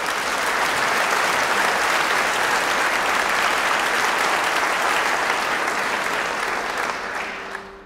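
An audience applauding, a dense steady clapping that fades away near the end.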